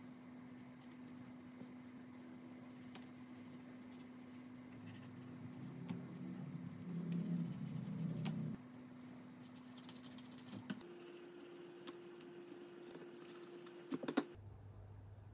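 Kitchen knife sliding and scraping on a wooden cutting board as the skin is cut away from mottled spinefoot fillets, with soft scratching and light taps. The scraping gets louder for a couple of seconds in the middle, and a few sharp taps come near the end, over a faint steady hum.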